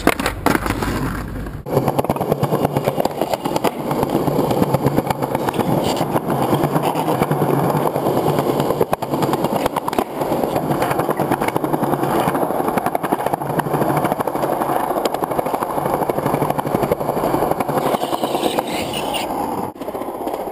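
Skateboard wheels rolling over rough pavement and asphalt, a continuous gritty rumble.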